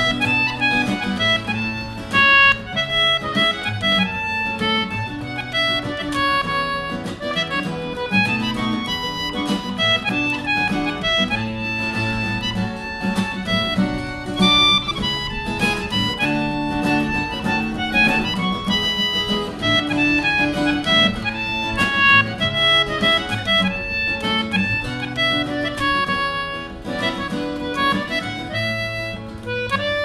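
Concertina and acoustic guitar playing a tune together.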